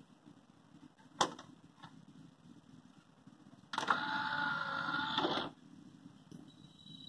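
A DVD player's motorised disc tray closing with a mechanical whirr of just under two seconds, starting a little under four seconds in and stopping suddenly. Before it, a single sharp click about a second in as the CD is set into the tray.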